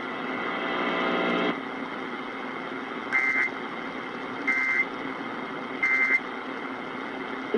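Emergency Alert System end-of-message signal over AM radio: three short bursts of warbling digital data tone, one about every second and a half, marking the end of the weather warning. Steady AM radio hiss runs underneath, and a brief buzz comes before the first burst.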